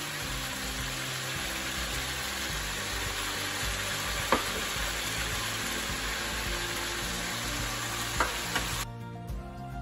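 Chicken pieces sizzling as they fry in oil in a wok, with a couple of sharp ticks. The sizzle cuts off abruptly shortly before the end.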